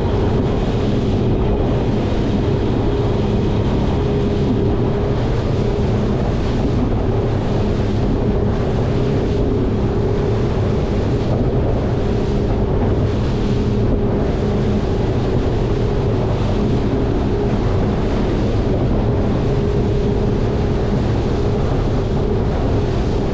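A Grady-White 336 Canyon's twin outboard engines run steadily at cruising speed, with the even hum of the motors under water noise from the hull and wind on the microphone.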